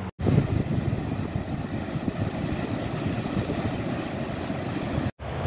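Water pouring through the gates of a river weir and churning into white water below, a steady rushing noise that cuts in just after the start and cuts off just before the end.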